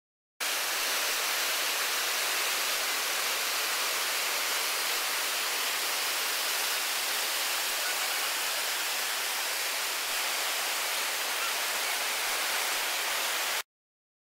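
Whitewater of a river rapid rushing: a steady, even hiss with little bass, which starts and cuts off abruptly.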